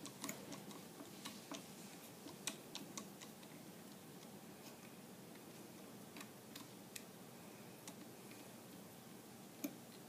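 Faint, scattered small clicks of a screwdriver turning a screw out of a Henry Big Boy rifle's receiver. They come thickest in the first three seconds, then a few more, with one sharper click near the end.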